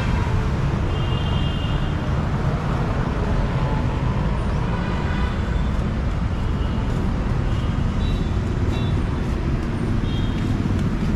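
Steady low rumble of street traffic, with a few faint, short high chirps now and then.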